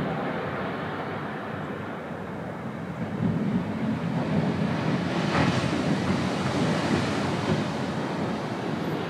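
Small Pacific Ocean waves breaking on a sand beach: a steady rush of surf that swells about three seconds in as a wave crashes close to shore, is loudest around five seconds, then washes out.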